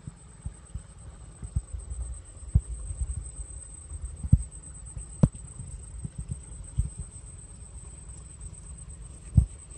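Insects chirring in one steady high-pitched tone, over irregular low thumps and a few sharp knocks, the loudest a little after five seconds in.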